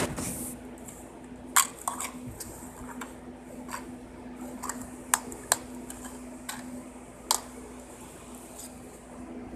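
Plastic DVD case being handled and opened: a few sharp clicks and taps, over a steady low hum.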